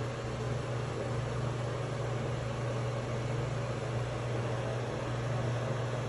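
Aquarium equipment running: a steady low hum with an even hiss over it.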